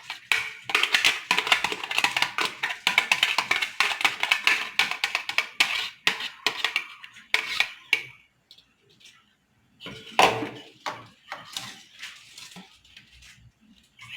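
A kitchen utensil scraping rapidly against a dish for about five seconds, then a few separate knocks.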